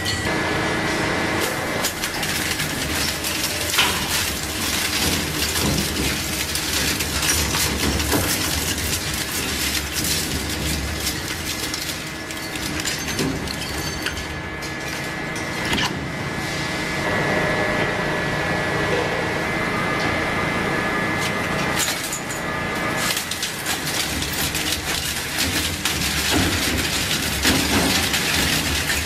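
Twin-shaft industrial shredder's rotating steel cutter discs tearing up a tubular metal frame and plastic parts: continuous crunching, cracking and snapping of metal and plastic. A steady high whine from the machine runs underneath and stops near the end.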